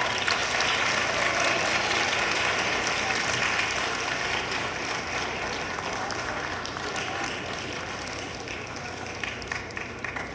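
Audience applauding, loudest at the start and slowly dying down, with separate claps standing out near the end.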